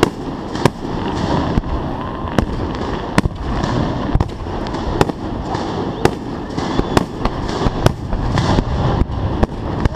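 Fireworks display heard close to the firing site: a continuous dense rumble of launches and bursts, with sharp bangs a bit more than once a second.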